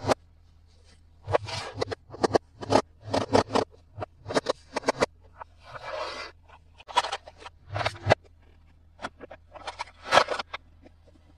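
Hands unboxing toys: irregular bouts of scraping, rustling and sharp clicks from packaging and plastic parts being handled, with short pauses between them.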